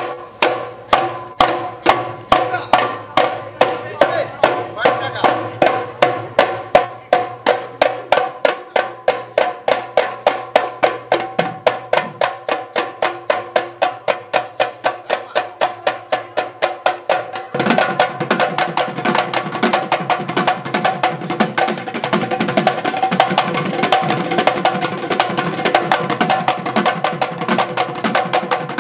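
Bihu dhol, two-headed barrel drums beaten with stick and hand, in a steady fast rhythm of about three to four strokes a second, under a held high melody from the pepa, a buffalo-horn pipe. About seventeen seconds in, the drumming turns denser and fuller.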